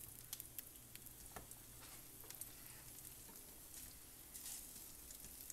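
Cut sausage pieces sizzling faintly as they are laid into a hot frying pan, with a few light taps as the pieces go in.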